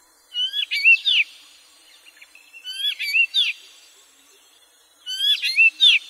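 Black drongo calling: three short phrases of quick, sliding high notes, each about a second long and about two seconds apart.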